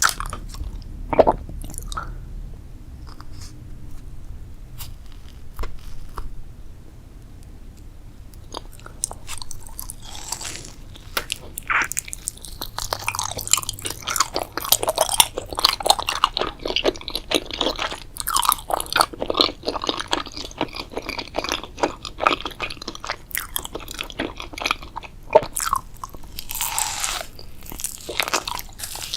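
Close-miked eating: crunchy bites and chewing, with a few scattered crunches at first, then a long stretch of dense, crackly chewing.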